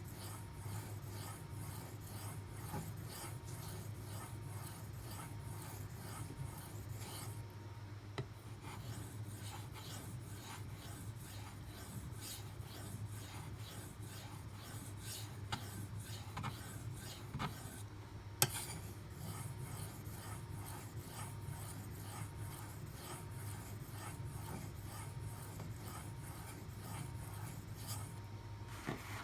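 A D2 steel knife edge being stroked repeatedly across a Shapton Pro 5000-grit sharpening stone, a steady run of short scraping strokes.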